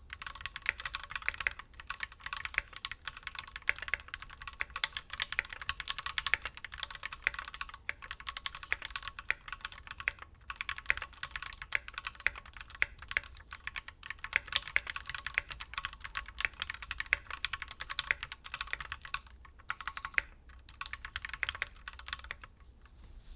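Continuous fast typing on a Keychron Q3 mechanical keyboard with factory-lubed Gateron G Pro Red linear switches, with a few brief pauses, stopping shortly before the end.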